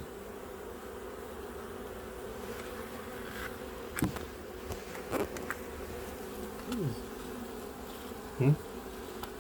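Honeybees humming steadily around an open hive. Now and then a single bee buzzes close past, its pitch falling.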